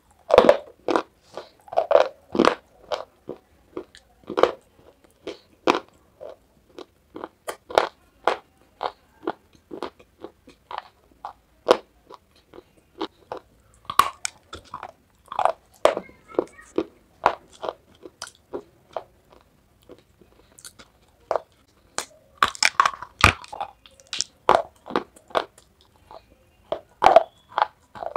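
Crunching and chewing of dry white edible clay (khadi chalk), an irregular run of sharp crisp crunches with short pauses between bites.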